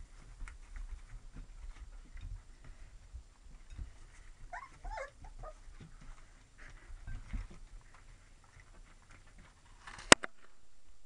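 Lab–retriever mix puppies shuffling and bumping about, with a short run of high, wavering whimpers and squeaks about halfway through. A single sharp click near the end is the loudest sound.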